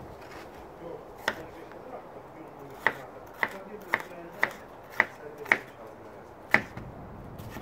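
Kitchen knife slicing a red bell pepper on a wooden cutting board: eight sharp knocks of the blade striking the board, about two a second through the middle.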